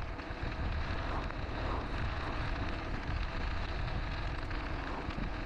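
Steady wind rush and buffeting on the microphone of a camera mounted on a moving bicycle, over a low rumble of the tyres rolling on asphalt.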